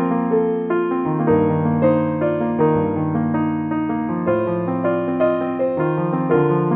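Background music: a piano or electric piano playing a steady melody of notes over sustained chords.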